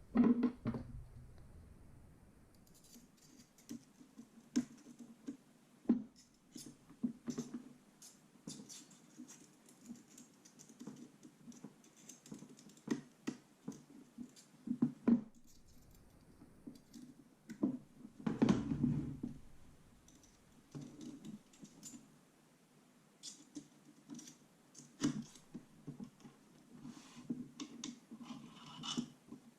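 Irregular clicks, taps and scrapes of parts and tools being handled while a metal M4 gel blaster is taken apart, with a few louder knocks, the largest about 18 seconds in.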